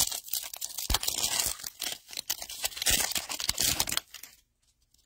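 Foil trading card pack being torn open by hand, the wrapper crinkling and crackling. It stops about four seconds in as the cards come out.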